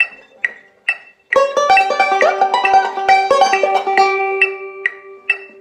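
Metronome clicking steadily at 136 beats a minute. About a second in, a five-string banjo played with fingerpicks comes in with a fast bluegrass lick of quick picked notes lasting about three seconds, ending on a note left ringing while the clicks go on.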